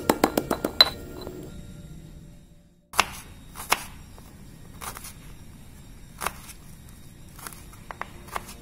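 A stone pestle knocking rapidly against a stone mortar while grinding a spice paste, for about the first second. After a short break comes a kitchen knife slicing shallots on a wooden cutting board: sharp separate cuts, about one a second.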